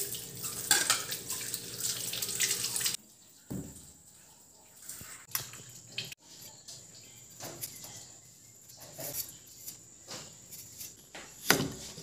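Tap water running from a faucet over hands and a cleaver at a sink, cutting off abruptly about three seconds in. Then come scattered soft scrapes and knocks as fresh ginger is handled and cut with a cleaver on a wooden chopping block, with a louder knock near the end.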